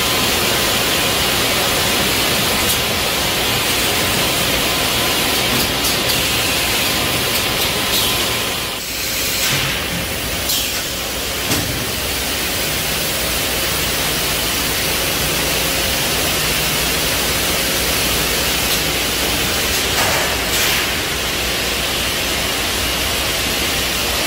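Steady machine noise of an automated can-handling line for a batch retort system running, with a few sharp clicks.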